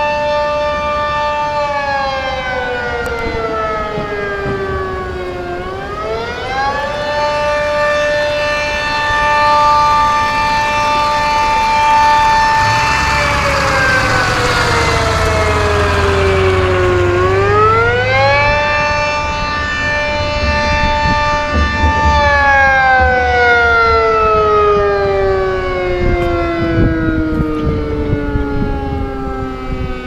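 Sentry 40V2T two-tone outdoor warning siren sounding during a test: a held chord that slowly sags in pitch and swoops quickly back up, twice, then sags lower again near the end. It swells loudest and brightest in the middle as the rotating horn sweeps round.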